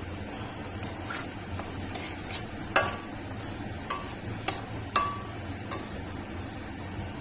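A metal spoon stirring in a cooking pan, knocking and scraping against the pan in about ten sharp clinks, a few with a short metallic ring, over a steady hiss.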